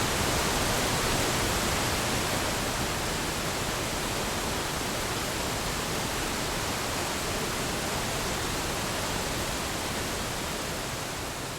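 Steady rushing roar of falling water from a waterfall, easing off slightly near the end.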